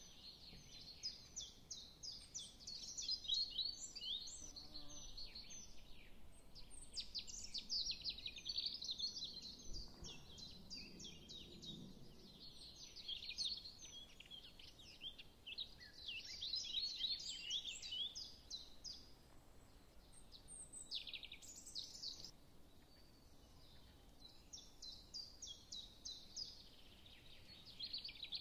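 Small birds chirping faintly: dense runs of short, high calls that rise and fall in waves.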